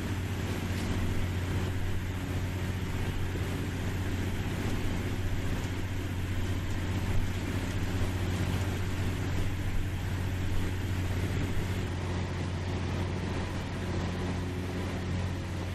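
Shrimp cutter's diesel engine droning steadily at a constant pitch, with water rushing along the hull.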